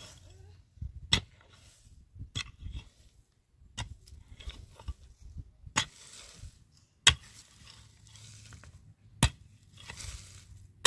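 Sharp knocks, about one every one to two seconds at an uneven pace, with softer scraping and rustling between them.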